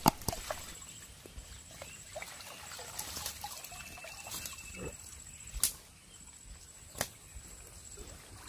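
Water sloshing and dripping as a China ring net holding fish is handled in shallow floodwater. There are small scattered ticks and three sharp slaps: one at the start, one about five and a half seconds in, and one a second and a half later.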